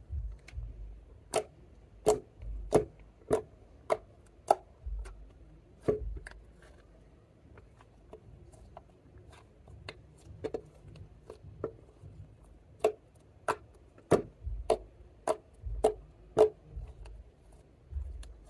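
Water slime being pressed and folded flat by hand, giving a series of sharp clicking pops, about one and a half a second, with a soft low squish of handling underneath. The pops come in two runs, with a quieter stretch in the middle.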